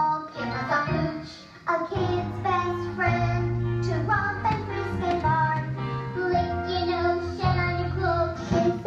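A song: a high, childlike voice singing a melody over a backing track with a bass line that changes note every second or so.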